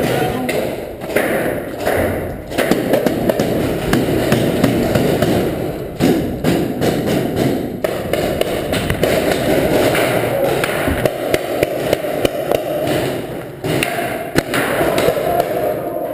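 Repeated thuds and sharp knocks in a paintball game, close to a player's body-worn camera, over a steady dense din.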